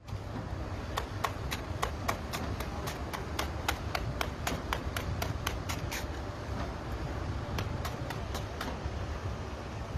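Outdoor phone-video sound: steady low wind rumble on the microphone, with a quick, even run of sharp clicks, about three or four a second, starting about a second in and growing fainter after about six seconds.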